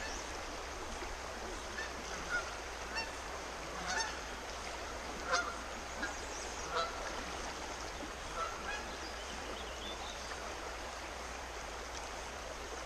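Scattered short bird calls, about a dozen, the loudest around five seconds in, over the steady rush of flowing creek water.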